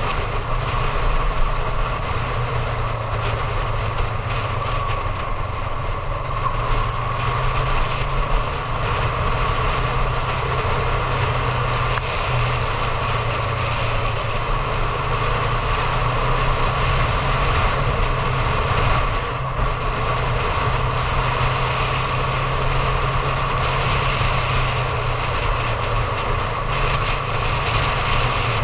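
Honda CB750 Hornet parallel-twin motorcycle engine running steadily while cruising along a lane, with the rumble of wind on the camera microphone.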